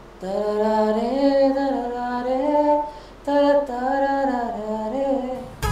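A single voice singing an unaccompanied melody in two sustained phrases, sliding between held notes, with a short break about three seconds in.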